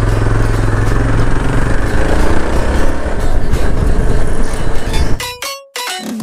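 Motorcycle engine running as the bike rides off and gathers speed, with heavy wind noise on the microphone. About five seconds in, the ride sound cuts off abruptly and short musical tones begin.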